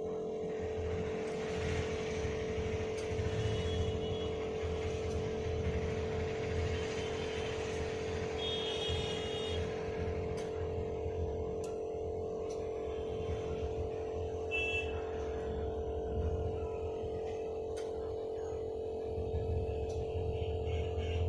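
A steady mid-pitched hum with low rumbling that comes and goes, a few short high-pitched tones, and faint scattered clicks.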